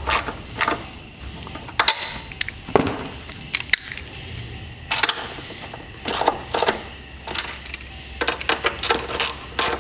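Hand ratchet clicking in short irregular runs as the throttle body's mounting bolts and nuts are snugged down by hand.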